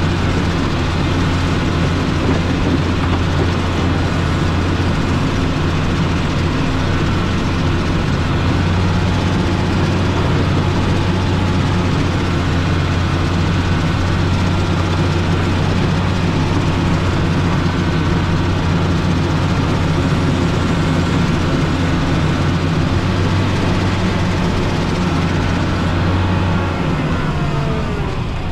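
Motor grader's diesel engine running steadily under work, with a strong low hum. A little before the end the engine note drops away as it throttles down.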